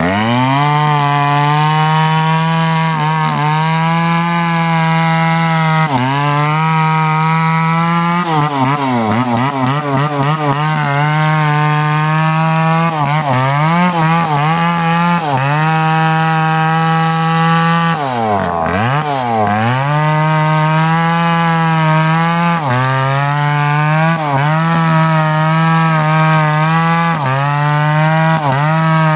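Two-stroke chainsaw cutting deep into the trunk of a large durian tree, running at high revs under load. Its engine pitch sags again and again as the chain bogs in the cut and then recovers, dropping hardest about 18 seconds in.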